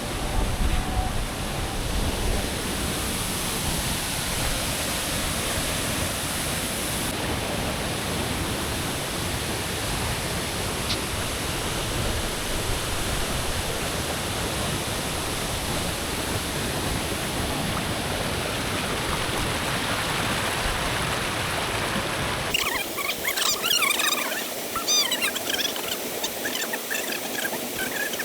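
Waterfall's rushing water, a steady full roar. About three-quarters of the way through it gives way to a quieter scene of birds chirping.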